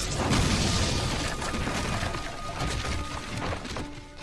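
Anime sound effect of a fire-style jutsu blast: a dense rushing of flames, with a faint music score underneath. It dies away near the end.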